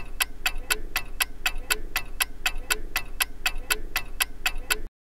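Ticking-clock sound effect for a countdown timer: rapid, even ticks at about four a second that cut off suddenly near the end.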